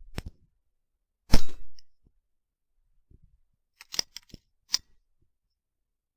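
A single rifle shot a little over a second in, then a quick run of sharp clicks near the end.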